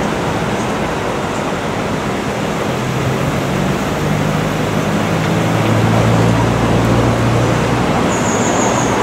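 Classic car engines running at low, steady revs over a constant rush of noise, the low hum shifting in pitch a few times and growing stronger past the middle. A brief high-pitched squeak near the end.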